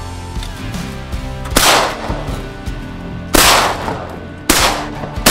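Shotgun blasts fired at flying ducks: three loud shots spaced a second or two apart, and a fourth just as it ends, each echoing briefly. Background music plays underneath.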